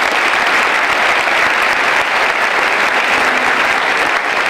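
Audience applauding, a dense, steady clapping that runs on without letting up.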